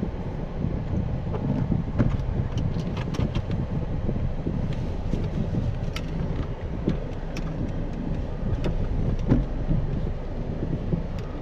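Car cabin noise from inside a Dodge sedan rolling slowly on wet pavement: a steady low rumble of engine and tyres, with scattered irregular light ticks.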